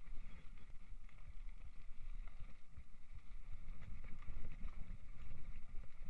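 Mountain bike ridden fast: wind buffeting the microphone over tyre noise and the rattle of the bike. The knocks get busier about four seconds in, as the bike leaves the tarmac lane for a rough grassy track.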